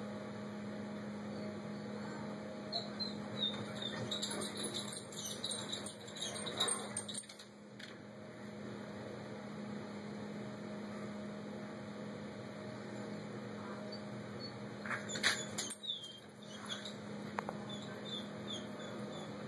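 Quick series of high chirps from a small bird, in two bouts, the first a few seconds in and the second near the three-quarter mark, over a steady low hum.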